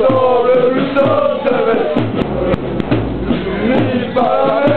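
Football supporters singing a chant together in one loud voice, with sharp beats scattered through it.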